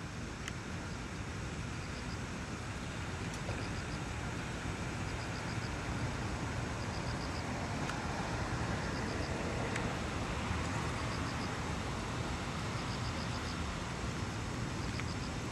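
Steady outdoor rushing noise at a moderate level, slowly swelling a little, with faint clusters of high ticks every second or two.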